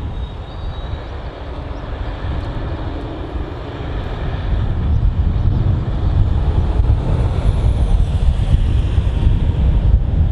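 Jet airliner engines rumbling, growing louder about halfway through, with a faint high whine that rises and falls.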